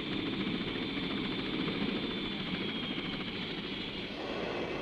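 Westland Sea King helicopter running: a steady high turbine whine over continuous rotor and engine noise.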